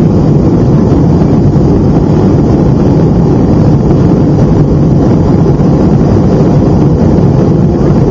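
Steady, loud jet engine and airflow noise heard inside the cabin of a Boeing 757 airliner in flight.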